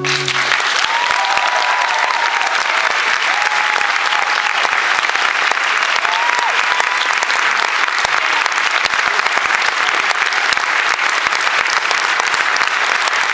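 A held keyboard chord cuts off at the start and the audience breaks into steady applause, with a few high whoops rising above the clapping now and then.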